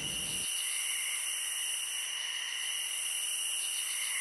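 A steady, even high hiss with no low end, like a filtered ambience bed, unchanging throughout.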